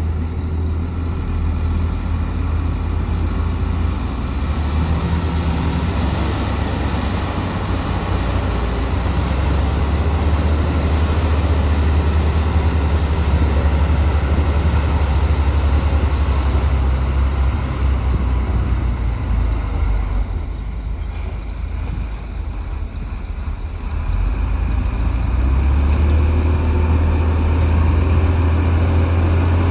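Heavy diesel engine of a bulldozer working steadily with a deep low rumble. It eases off about two-thirds of the way through, then picks up again under load.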